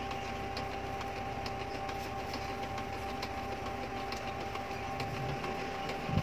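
Canon G-series inkjet printer running with a steady motor hum and faint ticking.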